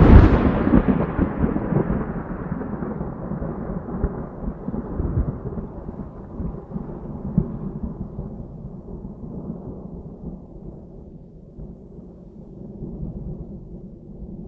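A thunderclap: a sharp, loud crack right at the start, then a long rolling rumble that slowly fades, the higher part of the sound dying away first and leaving a low grumble.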